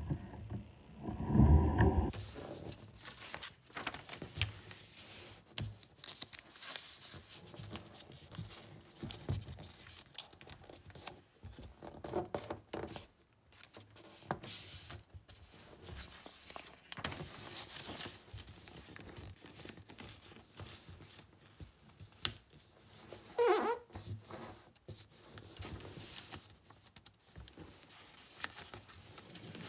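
A sheet of white paper being folded and creased by hand: irregular rustling, crinkling and sliding as the folds are pressed flat. There is a louder low handling bump in the first couple of seconds.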